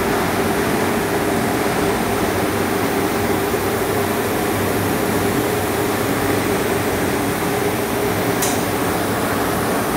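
Steady drone of running ventilation machinery with a constant hum, unchanging throughout, and one brief faint tick about eight and a half seconds in.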